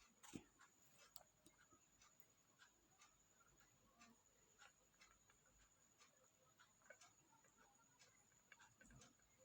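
Near silence with faint, irregular small clicks, about two or three a second: a pet parrot's beak nibbling and cracking at food.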